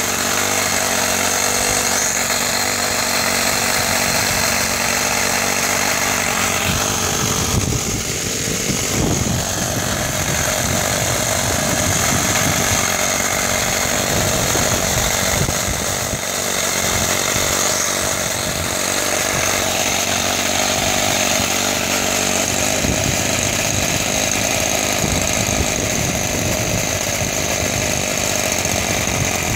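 A live-diesel model locomotive's O.S. FS-26S model engine, running on diesel fuel, running steadily with the clutch engaged to drive the loco, with a steady high whine from its electric cooling fans.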